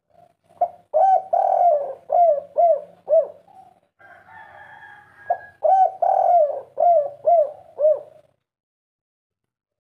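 Spotted dove cooing: two phrases, starting about half a second in and again about five seconds in, each a longer coo followed by three short arching coos, the three-note ending of the 'kuk 3' call type.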